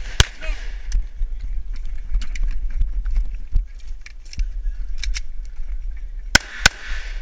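Pistol shots: one just after the start, then two quick shots about a third of a second apart near the end. Between them there is a steady low rumble with a few faint, light ticks.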